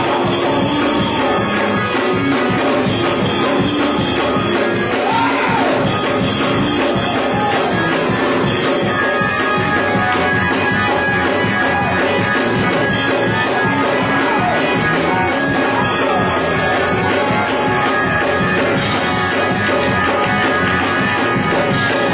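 Loud, steady up-tempo praise music played by a band, running without a break.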